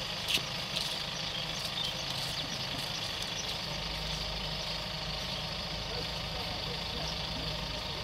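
Mahindra backhoe loader's diesel engine running steadily while it pushes sand with its front bucket, with a couple of short clanks in the first second. The low rumble grows stronger about four seconds in.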